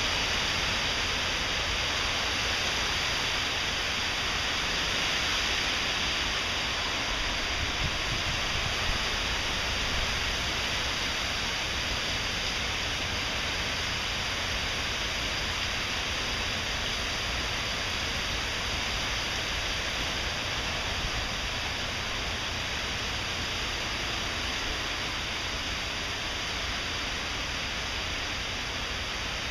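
Heavy hurricane rain pouring steadily, with gusting wind.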